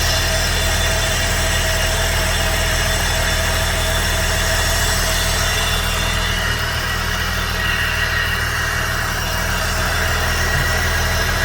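Turbocharged V6 Holden Commodore engine idling steadily.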